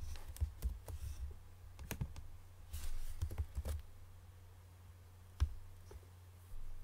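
Scattered clicks and keystrokes from a computer mouse and keyboard, a cluster of them about three seconds in and the sharpest click a little past five seconds, over a steady low electrical hum.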